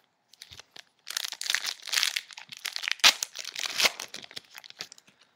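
Foil wrapper of a trading-card pack being torn open and crinkled by hand. The crackling starts about a second in and runs for about three and a half seconds, with a few sharp, loud crackles.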